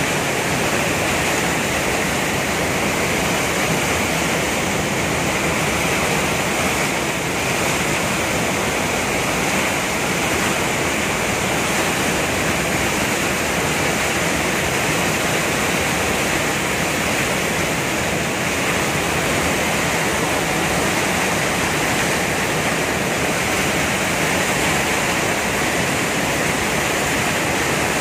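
Fast mountain river rushing over boulders in white-water rapids: a loud, steady rush of water.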